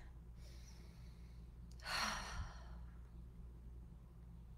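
A woman taking a slow deep breath: a faint drawn-in breath, then an audible sighing exhale about two seconds in, over a low steady hum.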